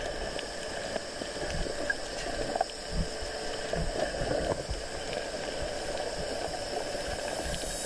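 Water sloshing and bubbling around an underwater GoPro housing as a snorkeler swims near the surface, with a few soft low thumps from his strokes.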